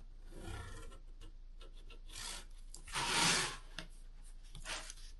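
Lines being drawn on cardboard: several separate strokes, the longest and loudest about three seconds in.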